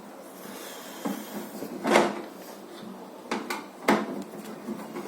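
Knocks and clunks of an opened microwave oven's housing and parts being handled: four sharp knocks, the loudest about two seconds in, with a faint scrape before them.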